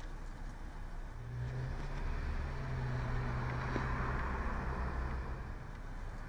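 A car driving past on the street: its engine drone and tyre noise swell from about a second in, peak around four seconds, and fade near the end, over a steady low background hum.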